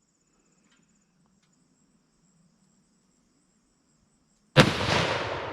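A single rifle shot from a Browning .308 about four and a half seconds in: a sharp crack followed by a long echoing tail that fades away over about a second and a half.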